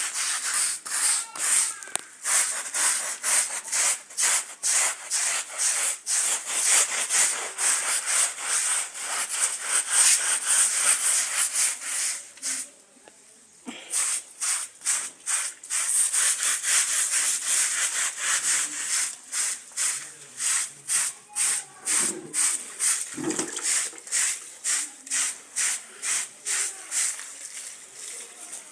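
Stiff scrubbing brush worked back and forth over a carpet being hand-washed, a steady run of rasping strokes at about two to three a second, with a pause of about a second halfway through.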